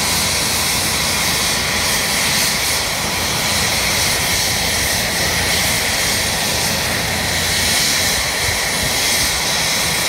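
AH-64 Apache attack helicopter running on the ground with its main rotor turning: the steady whine and rush of its twin turboshaft engines and rotor.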